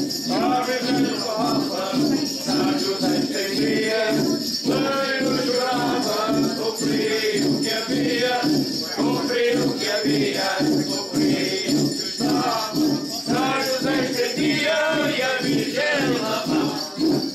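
A group of roncas, clay-pot friction drums sounded by rubbing a cane stick pushed through the skin, grunting in a steady rhythm of low pulses, with voices singing a Christmas song over them.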